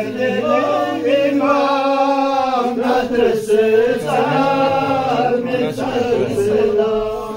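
Unaccompanied male chanting of a Purgi qasida, a devotional poem, in long held notes that waver and bend in pitch, trailing off near the end.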